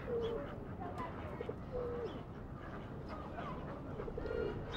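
Pigeons cooing several times, short clipped notes followed by longer drawn-out ones that slide down, over a steady background hiss.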